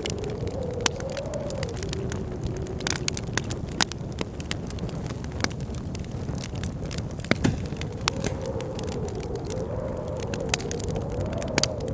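A wood fire crackling with frequent sharp pops over a steady blizzard wind. The wind howls in a wavering tone that rises and falls at the start and again in the last few seconds.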